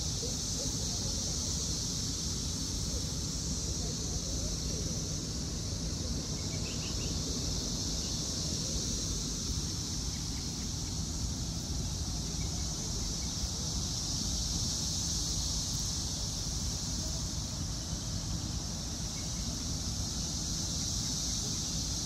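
Dense chorus of Brood XIII 17-year periodical cicadas: a steady, high-pitched drone that never breaks, over a low rumble.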